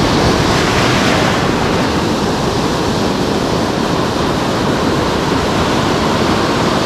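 Steady rush of surf on the reef, with wind buffeting the microphone.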